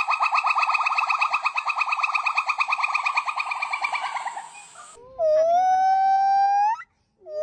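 Monkey calls: a fast trill of short rising chirps, about ten a second, that fades away. Then comes one long whistle-like call held on a steady pitch and sweeping up at its end, and another rising call begins near the end.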